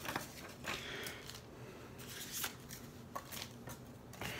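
Hands handling foil-wrapped trading card packs and foam packing peanuts in a cardboard box: faint rustling with a few scattered light crinkles and clicks.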